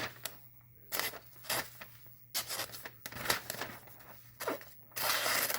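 Freshly sharpened kitchen knife slicing through paper in a series of short rips, with one longer continuous cut near the end: a paper test of the edge's sharpness.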